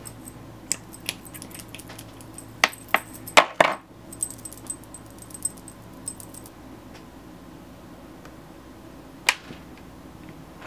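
Light clicks, taps and faint jingling from small makeup items being handled while concealer is applied. The loudest clicks come in a cluster about three seconds in, and there is one more sharp click near the end.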